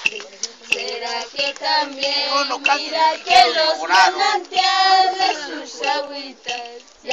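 Several high women's voices singing a hualina together, a traditional Andean ritual song, with long held notes that bend in pitch.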